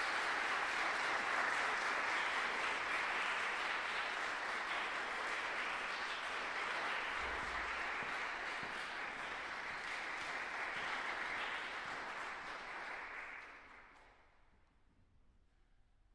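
Audience applauding, then dying away about thirteen seconds in.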